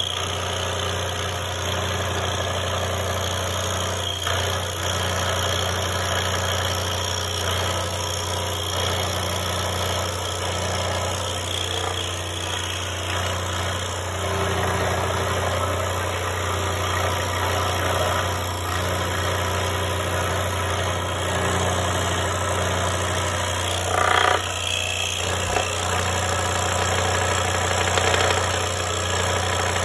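DeWalt 16-inch scroll saw running, its reciprocating blade cutting through a thick hardwood spoon blank with a steady hum and sawing noise. A brief louder burst of cutting noise comes about three-quarters of the way through.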